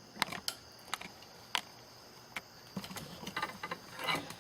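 Scattered light clicks and knocks of wooden bow-drill fire-set parts being handled and adjusted. The knocks are single and spaced out at first, then come thicker in the last second and a half.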